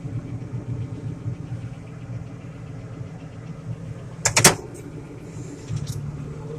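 John Deere 8770 tractor's diesel engine running steadily, heard from inside the cab. A short, sharp knock about four seconds in, and a fainter click near six seconds.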